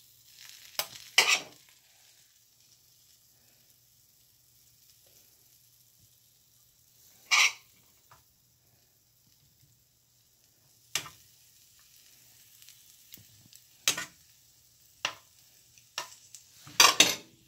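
A serving spoon scraping and knocking as a ground-beef and tomato mixture is scooped onto a tortilla pizza in a frying pan. It comes as a handful of short, separate scrapes and taps, the loudest about a second in and at about seven seconds, with a cluster near the end.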